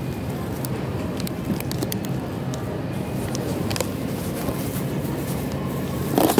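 Steady low hum and rumble of store background noise, with a few light plastic clicks and crinkles as clear clamshell cookie packs are bumped and handled. A short louder noise comes right at the end.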